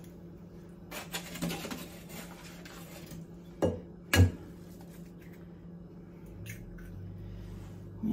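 Eggs being cracked against the rim of a glass mixing bowl of cake mix: two sharp knocks about half a second apart near the middle, with shell-cracking and handling noise around them.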